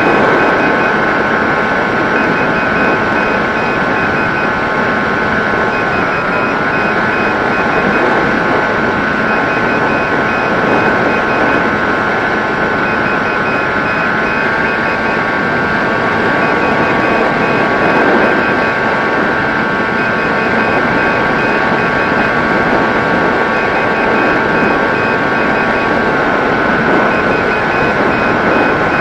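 Electric motor and propeller of an RC FPV plane in flight, a steady whine that shifts pitch slightly a few times with throttle changes, over a rush of wind noise. A faint broken high tone sits above it.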